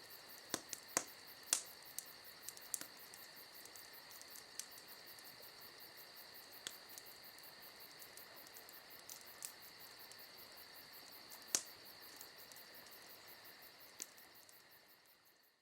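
Crickets chirping steadily in a night-ambience sound effect, with a few scattered soft clicks. It fades out near the end.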